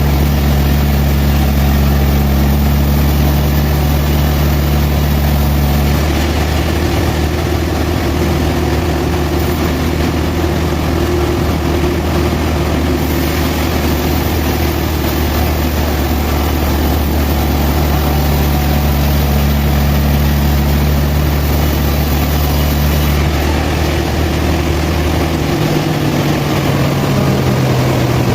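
Sawmill machinery with a heavy engine running steadily and loud, its low hum shifting in pitch about six seconds in and again near the end.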